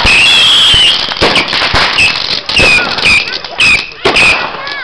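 Fireworks going off in quick succession: many sharp bangs, with a wavering high whistle over them and short curling whistles near the end.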